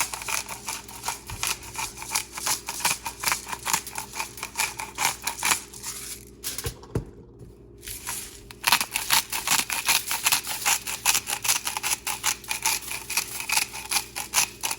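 Seasoning being shaken or ground out over a rack of raw pork back ribs: a fast run of crisp, rhythmic strokes, about five a second, that stops for two seconds about six seconds in and then starts again.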